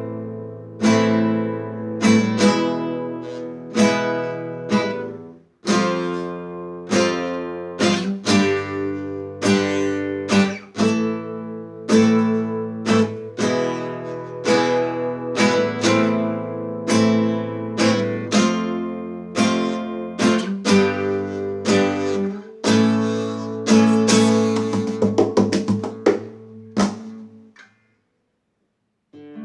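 Solo acoustic guitar playing an instrumental passage of strummed and plucked chords, each stroke ringing out. Near the end the playing fades out and stops briefly.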